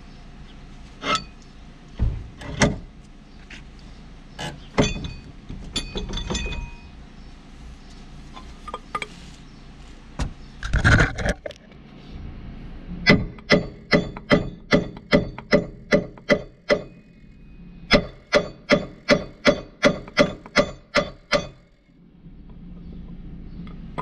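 Hammer blows on the steel front suspension and hub of a car, each with a short metallic ring. A few scattered knocks come first, then a steady run of strikes at about two to three a second, with a brief break in the middle.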